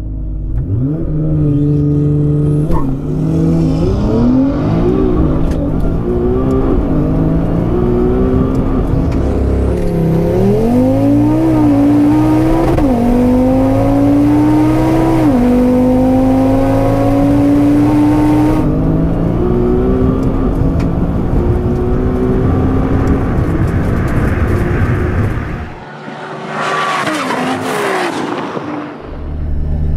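Tuned Audi TT RS's turbocharged five-cylinder engine at full throttle in a drag launch, its pitch climbing and dropping back at each gear change. Near the end, a car passes at speed with a rush that swells and fades.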